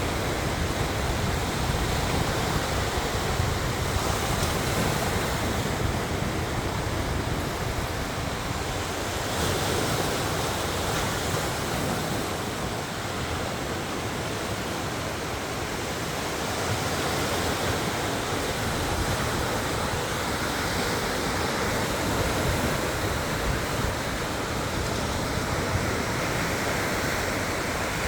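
Sea surf breaking and washing in strong wind, with the wind buffeting the microphone as a low rumble. It goes on as a steady rushing noise that swells and eases every few seconds.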